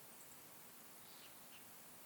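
Near silence: a faint even hiss of outdoor ambience, with a few brief, faint high bird chirps through it.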